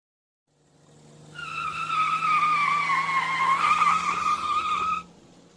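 Car tyres squealing in a long skid: the squeal builds in, holds a steady high pitch that dips slightly and comes back up, then cuts off abruptly.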